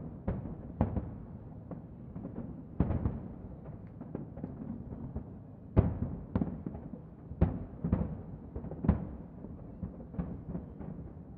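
Distant aerial firework shells bursting in an irregular barrage over a continuous low rumble, a bang every second or so, each trailing off briefly; the loudest bang comes about six seconds in.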